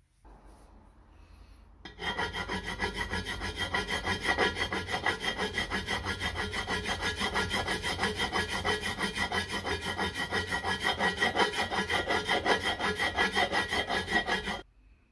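Flat metal hand file scraping back and forth across a damaged spot on an aluminium motorcycle engine side cover, smoothing it down before repainting. The rapid, even strokes start about two seconds in and stop abruptly near the end.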